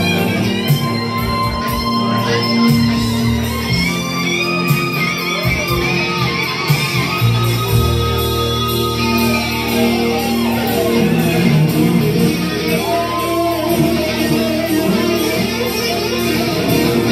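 Live electric guitar playing a lead line with bent and sliding notes over held bass notes and chords.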